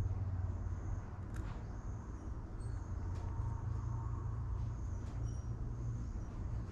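A few faint clicks from a hose clamp being tightened onto a rubber fuel hose over an aluminium connector, over a steady low hum.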